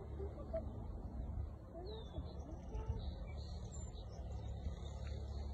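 Faint bird calls, short chirps and sweeping notes, over a steady low rumble.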